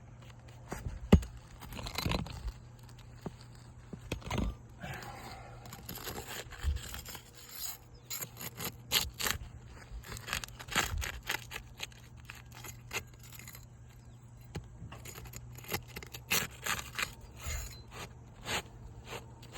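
Scraping and sharp clicks of a hand tool working under old, dried-out asphalt shingles to pull roofing nails, with one loud knock about a second in.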